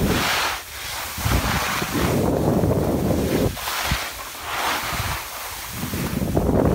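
Wind buffeting the microphone of a camera carried by a skier, with the hiss of skis scraping through wet spring snow. Both come in surges every second or two, as with each turn.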